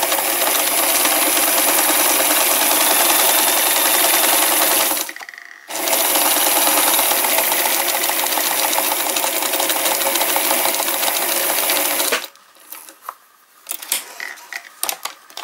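Electric sewing machine running steadily, stitching a straight seam through paper. It pauses briefly about five seconds in, starts again, and stops about twelve seconds in, leaving light clicks and rustles as the paper is handled.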